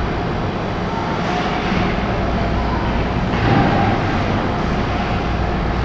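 Steady ice-arena background noise during a hockey game: a constant low hum under an even wash of distant rink sound, swelling briefly about three and a half seconds in.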